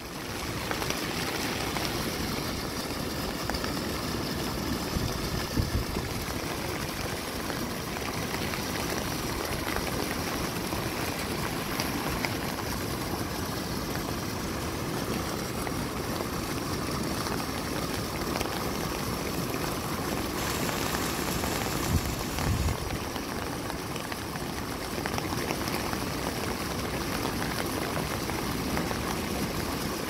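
Steady noise of heavy typhoon rain and surf washing over rocky shore ledges. A brief low thump about two-thirds of the way through.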